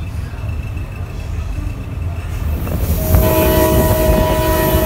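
Moving train running with a steady low rumble and rising rush of wind and rail noise; about three seconds in, the locomotive's air horn sounds a steady blast of several notes together, heard from a car further back along the train.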